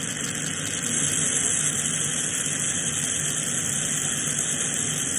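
Glassblowing bench torch flame hissing steadily.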